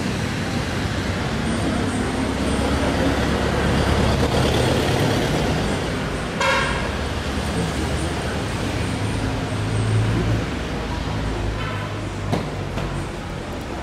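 Street traffic on a wet city road, engines running past, with one short vehicle horn toot about halfway through.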